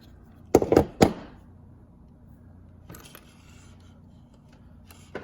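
Three sharp clicks in quick succession about half a second in, then a couple of faint ticks: a fibre-optic cleaver and small tools being handled right after the fibre is cleaved.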